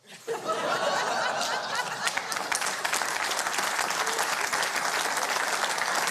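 Audience applauding, with laughter mixed in over the first couple of seconds. The clapping starts suddenly and then holds steady.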